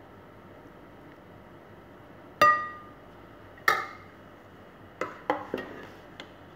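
A metal skimmer spoon clinking against a glass baking dish as pasta is scooped in: a ringing clink about two and a half seconds in, the loudest, another about a second later, then four quicker, lighter taps near the end.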